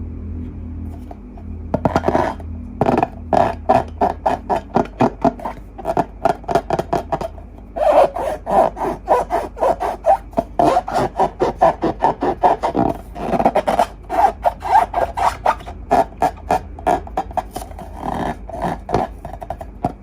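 Slime being squished and pressed by hand in quick, rhythmic squishes and pops, several a second, beginning about two seconds in.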